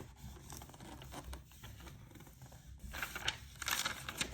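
Packaging being handled and crinkled while an item is taken out of a box: scattered small clicks and rustles, growing into louder crinkling near the end.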